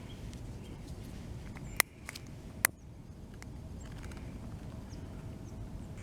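Two sharp cracks a little under a second apart, over a steady low outdoor rumble.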